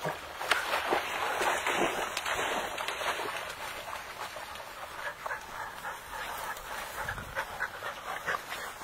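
Tall grass and brush rustling and swishing as someone pushes through the vegetation, in dense crackling bursts that are heaviest in the first few seconds and then ease off.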